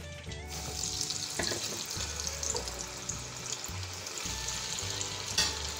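Cornflour-coated chickpeas deep-frying in hot oil: a steady sizzle starts about half a second in as they go into the oil and carries on, with one sharp spatter near the end.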